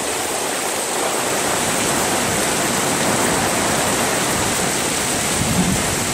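Heavy rain pouring down steadily in a downpour.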